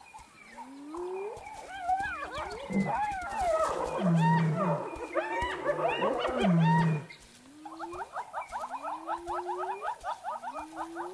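Spotted hyenas calling: a squabbling tangle of yelps, rising whoops and low growls, then a series of rising whoops about one a second. A fast, even trill runs under the last few seconds.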